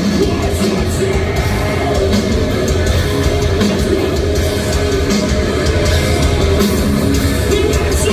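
Metalcore band playing live at full volume: distorted electric guitars, drums with crashing cymbals, and vocals over them, a loud, unbroken wall of sound.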